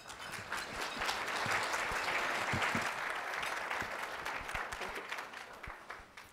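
Audience applauding, building up over the first second and dying away over the last few seconds.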